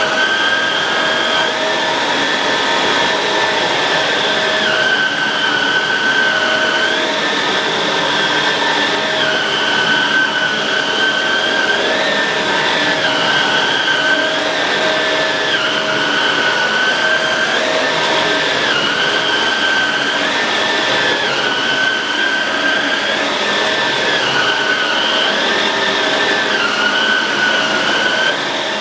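Shark Rotator Pro Lift-Away NV500 vacuum cleaner running steadily. Its motor whine shifts up and down in pitch every second or two.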